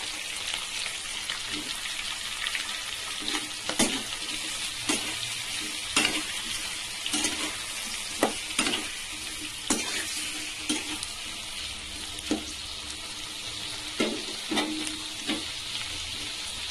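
Onions, tomatoes and chillies sizzling in hot oil in a metal kadai, with a steady frying hiss. A steel spatula stirs them, scraping and clinking against the pan at irregular moments, roughly once a second.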